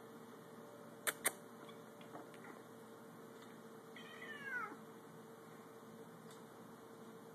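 A Siamese cat gives one meow about four seconds in, falling in pitch as it goes. Two sharp clicks about a second in are the loudest sounds.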